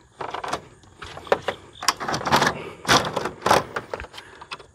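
An uncoated wire puller (fish tape) being drawn through electrical conduit, making a series of rasping scrapes and clicks as it drags.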